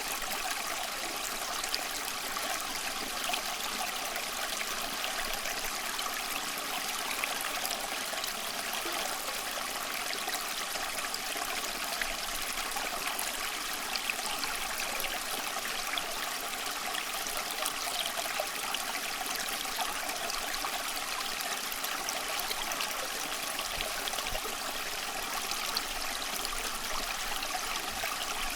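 Steady flowing water of a stream, an even rushing and trickling with no pauses or changes.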